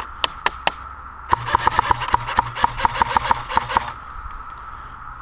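Airsoft gun firing: a few single shots in the first second, then a sustained full-auto burst of about six or seven shots a second over a low motor hum, stopping about four seconds in.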